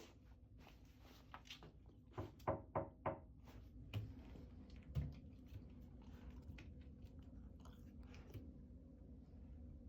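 Golden retriever puppy scrambling about in a bathtub: a quick run of four knocks about two to three seconds in, two more thumps over the next two seconds, then faint scuffling.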